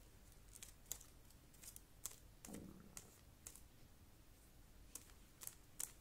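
Faint, irregular small clicks and taps, about ten of them, from a paintbrush dabbing paint onto a leaf and the painted leaf being handled and pressed onto paper.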